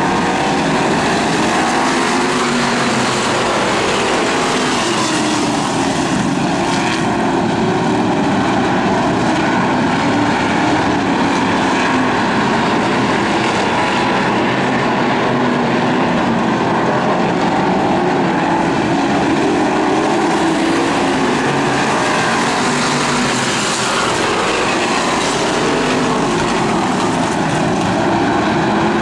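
A pack of hobby stock race cars running flat out around a dirt oval, their engines blending into one loud, steady drone.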